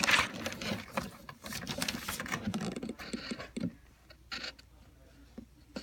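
Drawing on paper: irregular scratching strokes and small taps, busy for the first few seconds, then only a few scattered ones.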